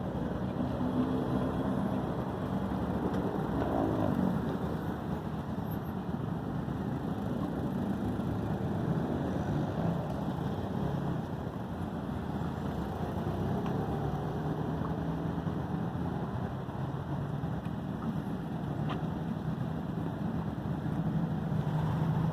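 Steady running noise of a vehicle: a constant low rumble with a faint hum underneath.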